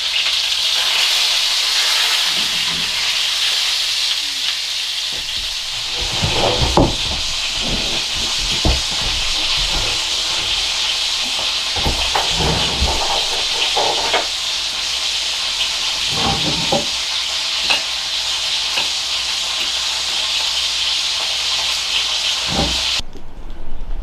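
Food frying and sizzling steadily in a hot pan or on a grill over a wood fire, with scattered knocks and clatters of cooking utensils from about a quarter of the way in. The sizzle cuts off abruptly near the end.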